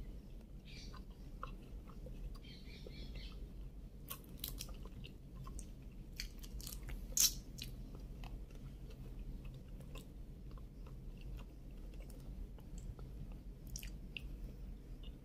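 Close-up mouth sounds of a person chewing and biting cooked shrimp, with scattered small clicks and one sharp click about seven seconds in.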